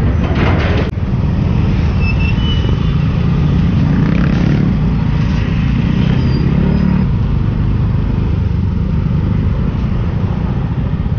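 Riding a Yamaha scooter in city traffic among other motorbikes and tuk-tuks: a steady low rumble of engine and road noise. A short hiss ends in a click about a second in.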